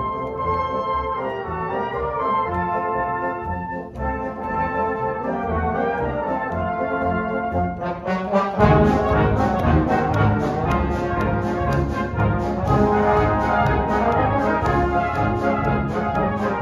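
A military brass band playing a march. It starts with held brass chords, then about eight and a half seconds in the full band comes in louder, with a steady beat running through it.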